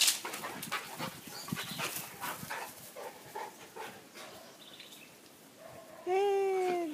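A boxer and a Czechoslovakian wolfdog wrestling in play on grass: scuffling and short, scattered dog noises, then near the end one loud, drawn-out whine that falls slightly in pitch and lasts under a second.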